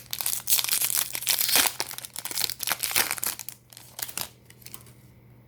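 Plastic wrapper of a Yu-Gi-Oh trading card booster pack crinkling and being torn open, dense crackle for about three and a half seconds, then a few last ticks before it stops.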